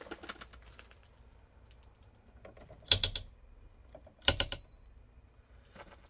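Two sharp snapping clicks about a second and a half apart: circuit breakers in a home electrical panel being switched on, the pair that together feed a 220-volt circuit.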